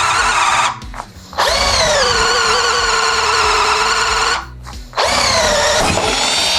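Electric drill turning a BLITZ auger wood bit, its motor whine running in three bursts with two short stops. At each restart the pitch sags and then climbs back, as the bit spins up and bites into the wood.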